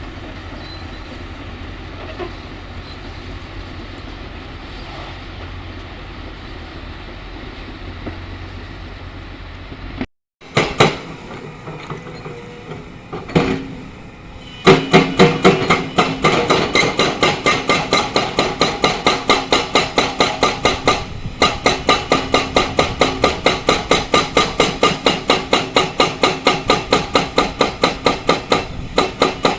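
Excavator's diesel engine running steadily, then after a cut a few knocks, and from about fifteen seconds in a hydraulic breaker pounding limestone in a fast, even rhythm of about four blows a second.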